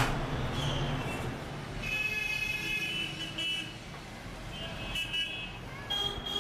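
Street traffic rumbling, with vehicle horns honking: one long honk about two seconds in and a shorter one about a second after it.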